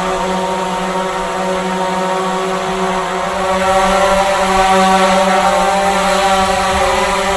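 Drone flying: the steady buzzing whine of its propellers and motors, with a slightly wavering pitch, growing a little louder about halfway through and easing again near the end.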